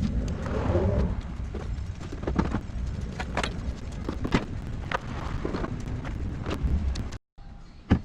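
Scattered knocks, clicks and clanks of tools and metal parts being handled as a scooter is taken apart, over a steady low rumble; the sound cuts out briefly near the end.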